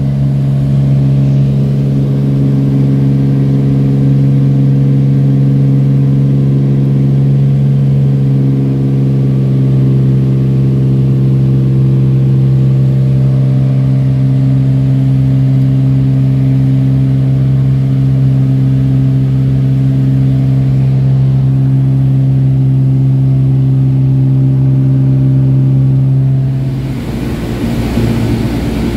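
Small plane's engine and propeller heard from inside the cabin in flight: a loud, steady drone holding one pitch. About 27 seconds in it changes abruptly to a rougher, hissier cabin noise.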